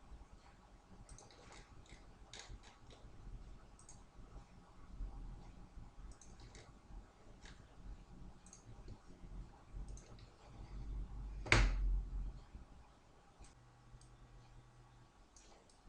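Computer mouse clicking at an irregular pace, faint short clicks with one louder click about halfway through the second half.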